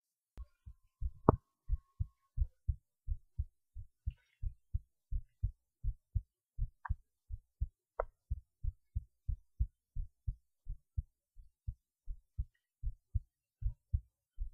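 A person's heartbeat, recorded while lying on the left side: a steady run of soft low thumps, about three a second. A sharp click about a second in is the loudest sound.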